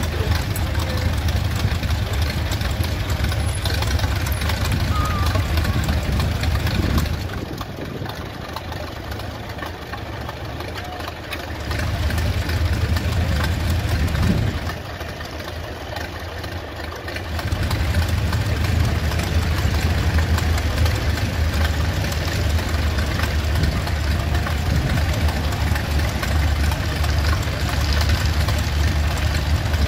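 Allis-Chalmers 6-12 tractor engine idling with a steady low pulsing beat. The sound drops away twice for a few seconds, about 7 seconds in and again around 15 seconds, then comes back to the same level.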